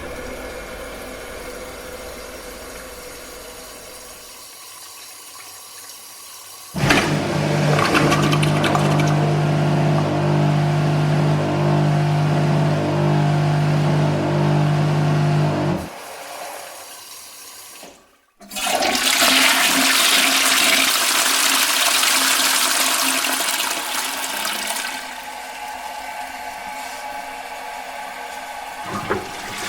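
Toilets flushing, one after another. A quieter trickle fades out, then a flush starts suddenly with a steady low hum under the rushing water and runs for about nine seconds. After a brief silence, a second flush bursts in with a bright, hissing rush and settles into a quieter wash of the cistern refilling.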